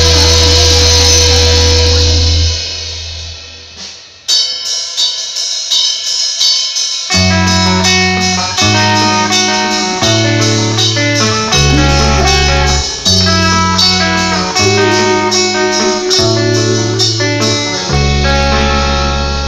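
Live rock band: a loud held chord rings out and fades, then a clean electric guitar picks a line on its own about four seconds in. Bass guitar and drums come back in about seven seconds in, the bass moving in long notes under the picked guitar.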